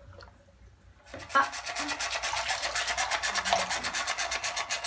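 Clockwork wind-up bath toy running: a rapid, even rattle of its spring-driven mechanism as its paddling legs rub on a textured bath mat, starting about a second in.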